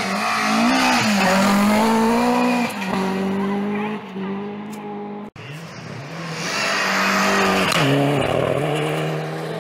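Rally car engines at full throttle on a loose gravel stage, with gravel hissing under the tyres. The first car's engine note holds high and falls in pitch twice, then breaks off abruptly about five seconds in. A second car, a white Ford Fiesta rally car, then comes up loud, passes and falls in pitch as it goes away.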